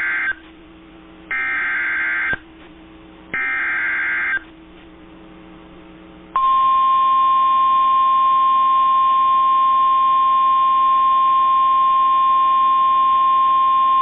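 Emergency Alert System SAME header for a severe thunderstorm warning: three buzzy digital data bursts about a second long each, the first ending just after the start. About six seconds in comes the NOAA Weather Radio 1050 Hz attention tone, a single steady, shrill tone.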